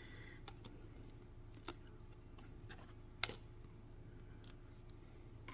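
Faint clicks and ticks of Topps Chrome trading cards being handled, slid against each other and set down, the sharpest about three seconds in, over a low steady hum.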